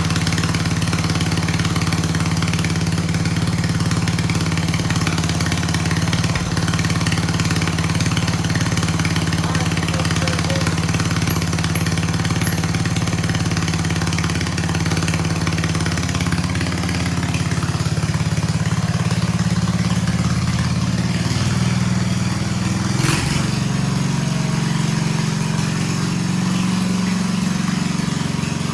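Derby lawnmower's small engine running continuously, its speed shifting in the second half, with a single sharp knock late on. It runs, but the builder finds it can't be revved when driving.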